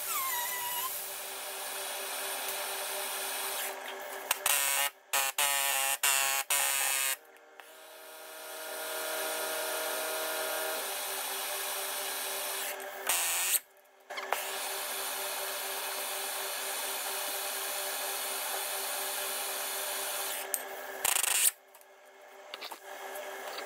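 MAP gas torch hissing steadily as it heats a seized leaf-spring U-bolt nut, broken by several short loud bursts of an impact gun working at the nuts. The nuts need the heat because the gun cannot undo them cold.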